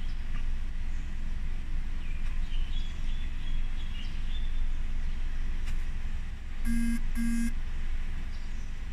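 Steady low rumble of a car idling, heard from inside the cabin, with two short beeps in quick succession near the end.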